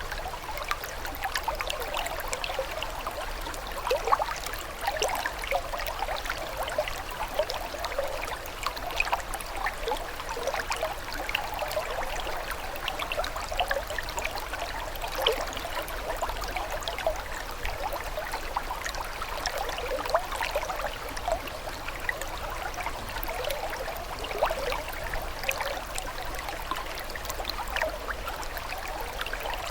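Small stream trickling and babbling over stones, a steady splashy burble of many little irregular gurgles.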